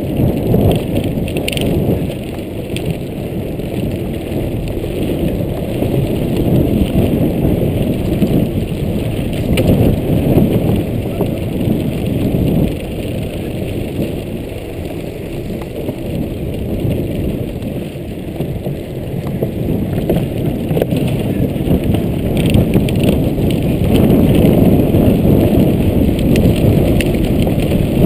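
Mountain bike rolling over a wooden plank boardwalk, heard from on the bike: a steady low rumble of tyres on planks with light rattling, louder near the end.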